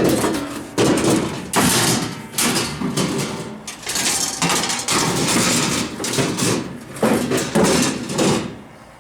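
Irregular hard knocks and clatter of loose junk, the pieces of a motor that has fallen apart, being dropped and handled, several impacts a second.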